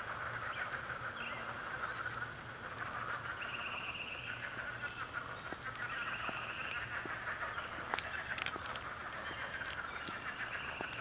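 Chorus of frogs calling: a dense, continuous mass of overlapping trills, with higher calls about a second long repeating every couple of seconds over it. A few sharp ticks come in the second half.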